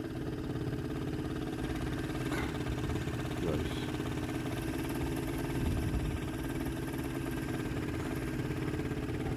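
Boat engine running steadily.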